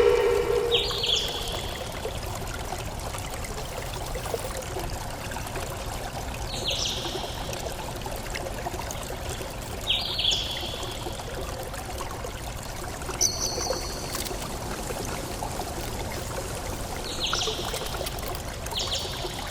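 Water trickling and flowing steadily, like a small stream. A bird gives short, high, stepped calls every few seconds over it.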